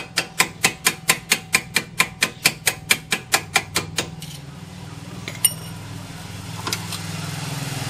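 Ratchet wrench clicking rapidly and evenly, about five clicks a second, as a bolt on a car's front suspension is turned; the clicking stops about four seconds in. A couple of single metal clicks follow, and a low hum builds near the end.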